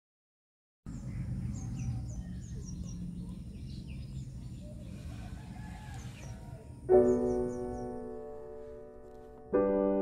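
Outdoor ambience with birds chirping over a low steady background rumble. About seven seconds in, a piano chord starts and rings on, and a second chord follows about two and a half seconds later.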